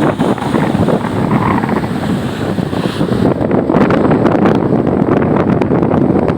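Strong wind buffeting the microphone on a ferry at sea, a steady loud rush with gusty thumps from about halfway through, over the wash of rough waves against the ship.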